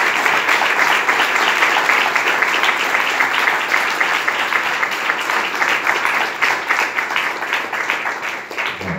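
A crowd of guests applauding, dense and steady, dying down near the end.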